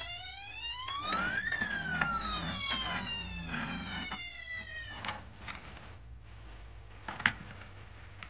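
A police siren wail: one smooth tone that rises for about a second and a half, then falls slowly over the next few seconds. A sharp knock follows near the end.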